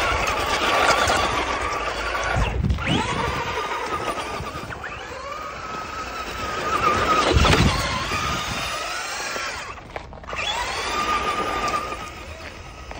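Electric RC car's motor and gears whining, the pitch rising and falling as the throttle is blipped and released while it spins and races across snow, briefly dropping off twice.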